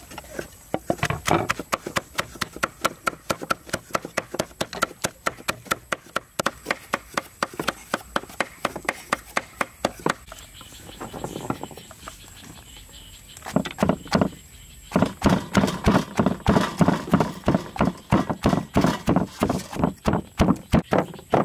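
Cleaver chopping rapidly on a wooden chopping block: a fast, even run of sharp knocks with a short lull a little past halfway. From about two-thirds of the way in the knocks come heavier and louder, with a stone pestle pounding lemongrass in a stone mortar.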